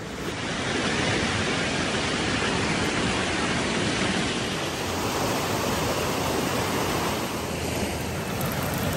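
Fast river rushing over rocks in rapids: a steady, loud rush of water that comes in just after the start.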